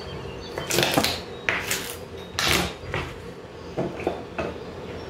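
Chef's knife cutting and scraping green pepper on a plastic cutting board: a few sharp strokes, the loudest in the first three seconds. About four seconds in, shorter clicks as the cut pieces are dropped into a plastic food-chopper bowl.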